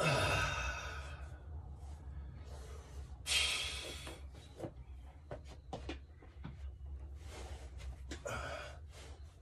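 A man breathing hard through an exercise set, with a loud forceful exhale about three seconds in and two more heavy breaths near the end. A thud right at the start rings out over about a second, and a few light clicks fall between the breaths.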